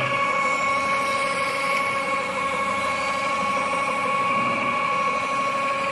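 Metal-spinning lathe running at steady speed with a constant whine while a hand-held spinning tool is pressed against the turning copper blank.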